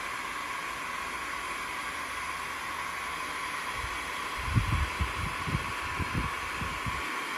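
Heat gun running steadily, a hiss with a hum near its middle, blowing hot air to shrink heat-shrink tubing over a crimped battery-cable lug. From about four seconds in, irregular low thumps come in under it.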